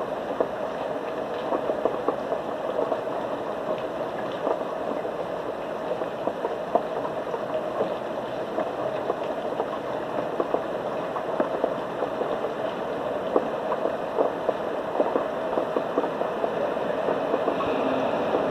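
Steady rain falling, a continuous hiss dotted with many small irregular drop ticks and splashes.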